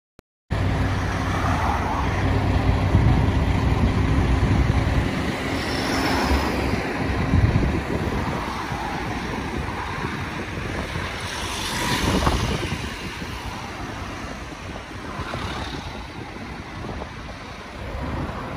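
Street traffic: vehicle engines running close by with a low steady hum at first, then rushes of passing vehicles every few seconds.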